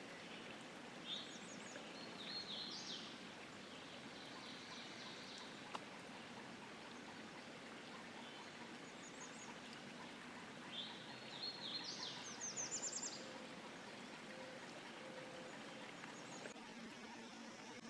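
Songbird singing in spring woodland: two spells of quick high chirps and trills, the first about a second in and the louder one past the middle, over a faint steady hiss. One sharp click about halfway.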